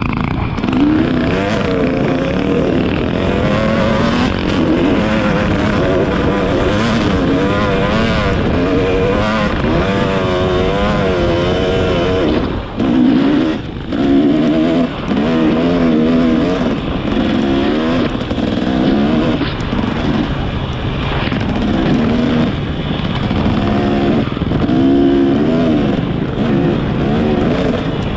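Motorcycle engine running while riding, its pitch rising and falling with the throttle. There is a brief drop in power about halfway through.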